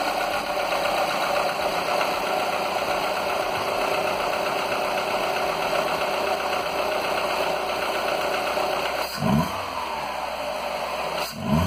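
1.4 16V petrol engine idling steadily after a piston replacement, the piston slap now nearly gone. Near the end it is briefly revved twice.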